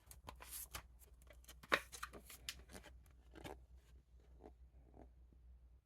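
Faint rustling and light clicks of a card collector's album being handled and its pages turned, with one sharper rustle a little under two seconds in.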